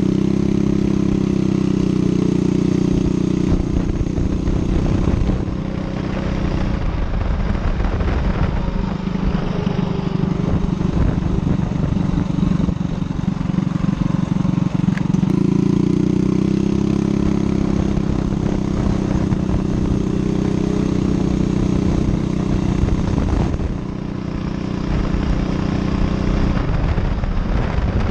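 Single-cylinder Predator 212 engine of a mini chopper motorcycle running as the bike is ridden down the road. It holds a steady engine note, which twice gives way to a rougher, noisier stretch, with short drops in level about six seconds in and again near the end.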